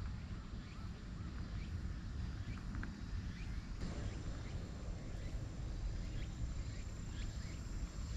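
Outdoor ambience: short, scattered bird chirps over a low steady rumble of wind on the microphone, with a thin, steady high tone joining about four seconds in.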